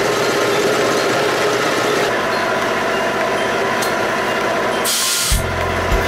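Old tank-mounted electric paint-sprayer air compressor running loudly and steadily, its motor and piston pump at full work. About five seconds in there is a short hiss, then a low hum with evenly spaced clicks.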